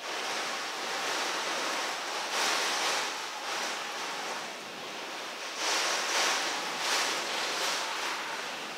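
Category 1 hurricane wind and heavy rain lashing the house as a steady rushing noise, swelling in gusts about two and a half seconds in and again around six to seven seconds.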